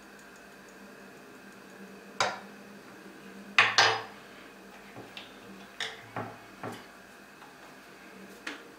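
A metal teaspoon and small spice jars clinking and knocking against a stainless steel saucepan and a wooden cutting board: about eight short, separate clinks, the loudest pair about three and a half seconds in.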